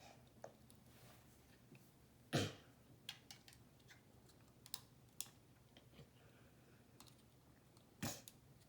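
Plastic Lego pieces being handled and pressed together: a few scattered small clicks and taps, with one louder knock a couple of seconds in and another near the end.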